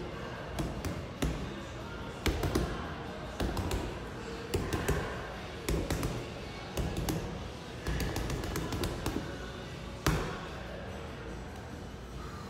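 Boxing gloves punching a hanging heavy bag: sharp thuds in irregular quick combinations, with the hardest single punch about ten seconds in.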